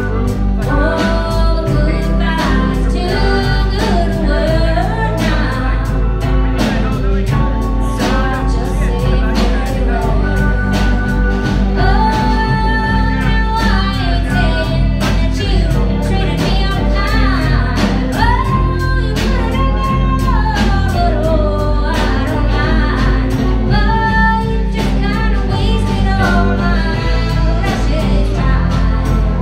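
Live band playing a song: electric guitars, keyboard and drums, with a sung melody of long held notes over a steady drum beat.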